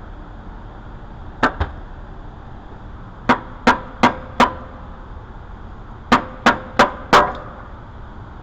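Sharp knocks on metal, ten in all in groups of two, four and four at roughly three a second, each with a short ring: the upper sump of an N74 V12 being tapped into place on its new gasket.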